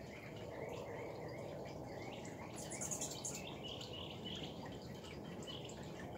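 Water bubbling and trickling over a sphere fountain, steady throughout. Over it come many short, high hummingbird chips, with a buzzy high chatter about two and a half seconds in.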